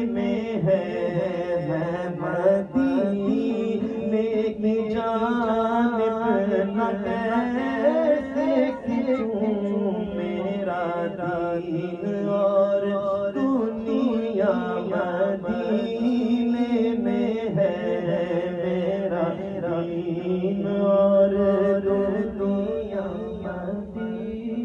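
Male voices singing a naat, an Urdu devotional poem in praise of the Prophet, into microphones with no instruments: one lead voice carries long, held, ornamented melodic lines over a steadier lower voice.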